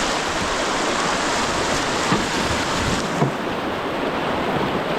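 Steady rush of fast-flowing river water, slightly duller from about three seconds in.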